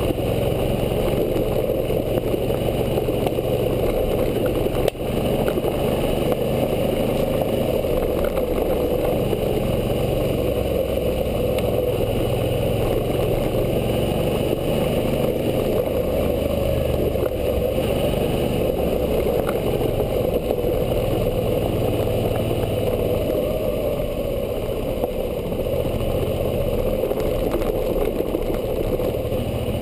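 Suzuki V-Strom 650's 645 cc V-twin engine running steadily while riding a dirt track, its pitch shifting a little with the throttle. A single knock about five seconds in.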